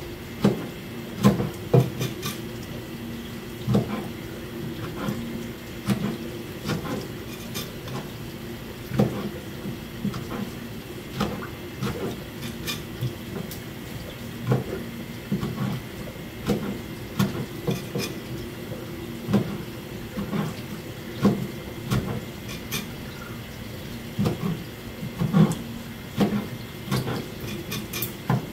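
Kitchen knife chopping through gizzard shad onto a plastic cutting board, cutting off the heads. It makes irregular sharp knocks of varying strength, about one or two a second, over a steady low hum.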